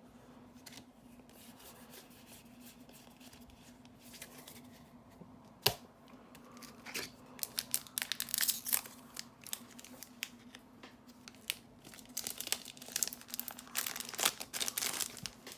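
A foil booster-pack wrapper being torn open and crinkled by hand, in two bouts of crackling, with a single sharp tap about six seconds in.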